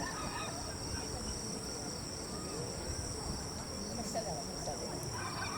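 Insects chirring in a steady high-pitched drone, with people talking faintly in the background.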